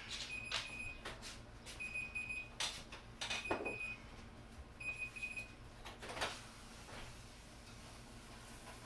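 Oven timer beeping, the signal that the set time is up: four short groups of high beeps about a second and a half apart, then stopping. A few knocks and clatters of handling come in between.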